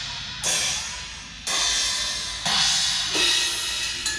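Drum kit with crash cymbals struck about once a second, four times, each hit ringing out and fading before the next.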